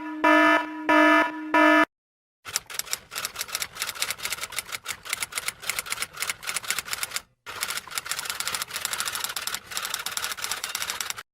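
A few short, pitched electronic beeps, then a long run of rapid typing clicks with a brief pause about seven seconds in.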